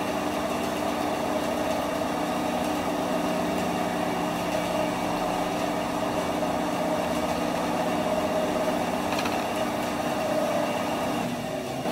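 10-inch benchtop bandsaw with a 550 W motor running free with no cut: a steady mechanical hum of motor, wheels and blade. It is an idle-running noise test, the hum measuring about 55 dB.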